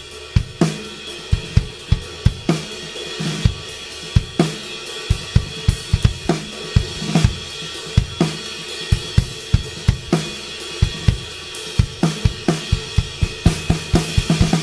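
Background music with a steady, busy drum beat.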